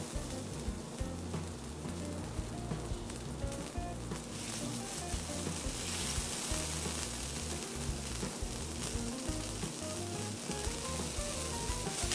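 Rib eye steak's fat edge sizzling on a hot flat-top griddle as it is held edge-down with tongs to sear. The sizzle grows louder about halfway through.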